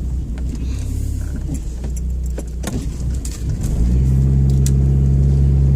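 Car engine and road noise heard from inside the cabin, with scattered light clicks and rattles. A little over halfway through, the engine note rises and then holds as a louder, steady hum.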